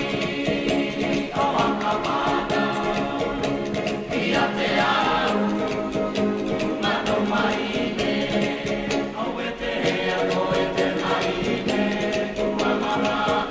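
Background music: a choir singing sustained notes in harmony, with frequent small clicks.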